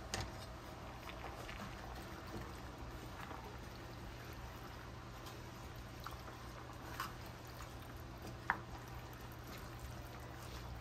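Canned crushed tomatoes being poured into a pot of soup, a soft, quiet pouring sound with a few light clicks.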